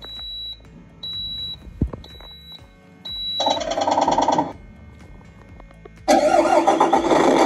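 Electronic sound unit of a 1/14 Tamiya Mercedes-Benz Actros RC truck playing its start-up sequence: four short high beeps about a second apart, a brief burst of engine sound about three and a half seconds in, then a loud simulated truck diesel starting and running from about six seconds in.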